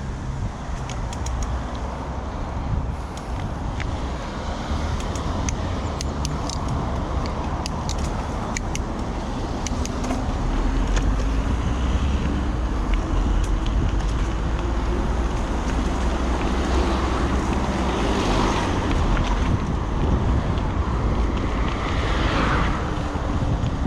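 Road traffic: a motor vehicle approaches and passes, its tone rising and falling over the second half, over a steady rumble of wind on a moving microphone. Light ticking in the first several seconds.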